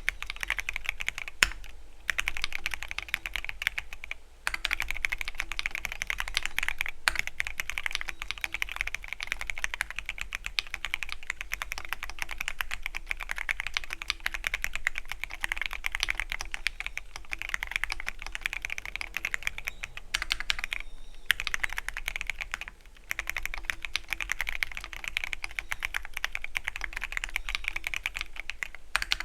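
Fast continuous typing on a Keychron Q13 Pro Max mechanical keyboard with linear red switches, rapid keystroke clicks with a few brief pauses between bursts.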